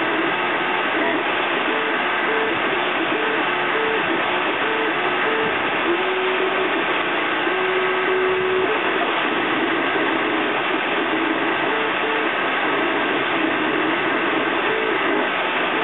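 FDM 3D printer at work: its stepper motors whine in short tones that jump in pitch as the print head moves, with one longer held tone a little past the middle, over the steady hiss of the hot-end cooling fan.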